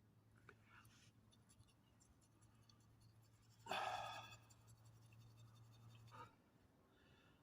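Near silence with a faint steady low hum. About halfway through comes a sudden scratchy rasp that fades over a couple of seconds.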